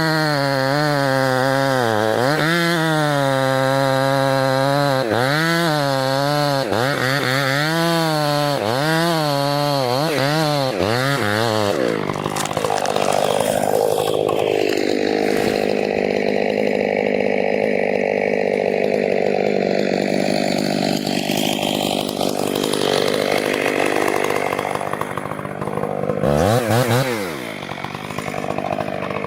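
Chainsaw cutting into a charred tree trunk, its engine pitch repeatedly dipping as the chain bites into the wood and rising again as it frees. About halfway through it settles into a steadier, rougher sound under load, then revs up and down again near the end.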